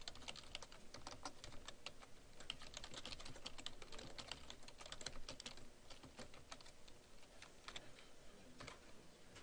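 Faint computer-keyboard typing: a fast, irregular run of key clicks that grows sparser over the last few seconds.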